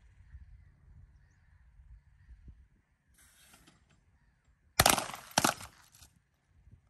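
Wind rumbling on the microphone, a short hiss about three seconds in, then two loud, sharp rifle shots about half a second apart, each ringing briefly.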